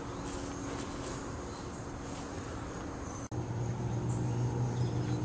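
Steady outdoor background with insects chirring. After a brief dropout about three seconds in, a low hum becomes louder.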